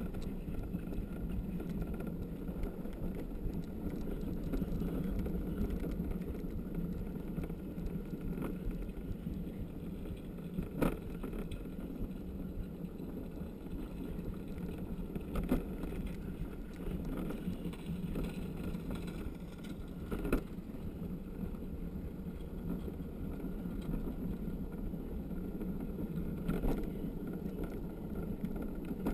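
A gravity luge cart's wheels rolling down a concrete track: a steady rumble, broken by a few sharp knocks a few seconds apart.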